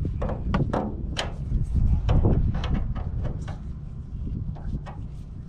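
Irregular metal clicks and knocks of a wrench working the fuel drain valve fitting under a light aircraft's wing, as the new valve is snugged up. They come thickest in the first few seconds and thin out toward the end, over a low steady rumble.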